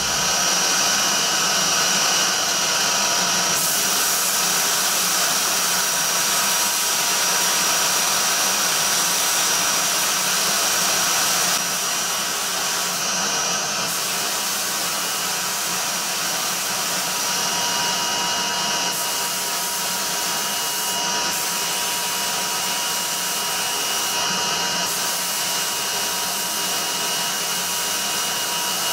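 Glass-bead blast cabinet gun hissing steadily as compressed air drives glass beads onto a die-cast aluminium model engine crankcase, with a faint steady whistle. The blast eases off slightly about twelve seconds in, and the sharpest hiss drops out briefly a few times.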